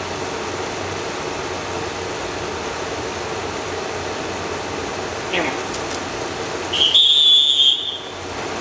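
One long blast on a dog-training whistle, a steady high tone that steps slightly up in pitch, about seven seconds in: the stop signal that halts a retriever running out on a retrieve. A short falling sound comes a second or two earlier, over a steady background hum.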